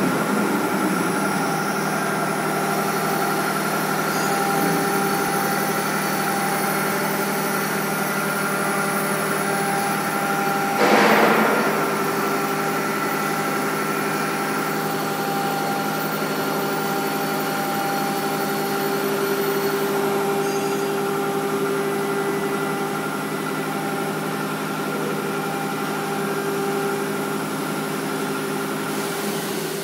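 5-axis CNC wood router's spindle running steadily while its cutter mills a round wooden workpiece: several steady whining tones over a noisy cutting hiss. About a third of the way in comes a louder noisy surge lasting about a second.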